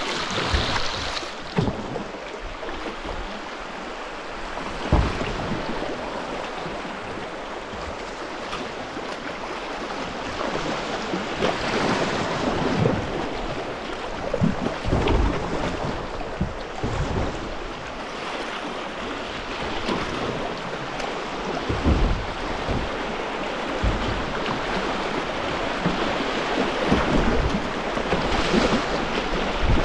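River rapids rushing and splashing over rocks around a kayak running through them. Wind knocks on the microphone in low thumps now and then.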